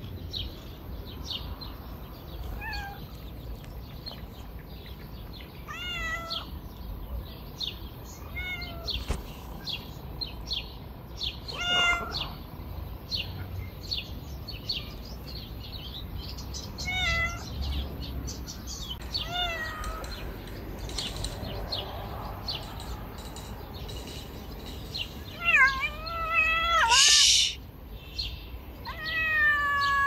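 Stray tabby cats meowing again and again, about eight separate meows spread out, with the loudest coming close together near the end. A brief loud burst of noise sounds about three seconds before the end, and faint short high ticks or chirps run underneath.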